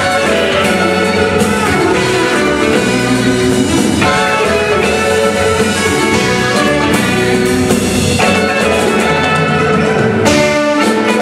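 Live band playing an instrumental passage: electric guitar with marimba, bass and drums.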